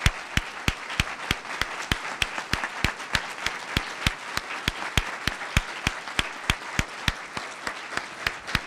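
Audience applauding, with one man's hand claps close to the microphone standing out as loud, sharp claps about three a second.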